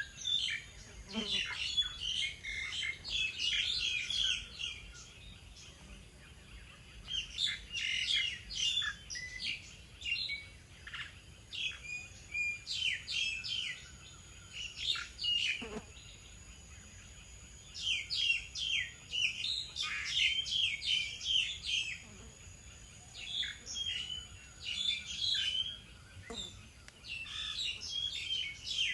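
Small songbirds chirping in bursts of rapid, high calls, with pauses of a second or two between the bursts.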